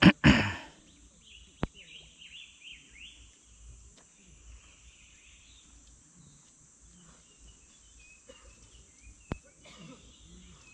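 Two loud thumps right at the start, then a bird's quick run of short falling chirps over a steady high insect drone. Two sharp clicks later on.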